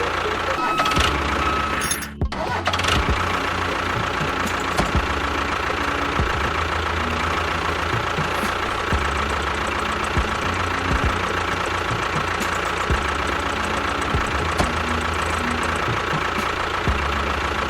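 Small electric motor of a DIY model tractor running steadily with a constant high whine, with background music underneath. The sound drops out briefly about two seconds in.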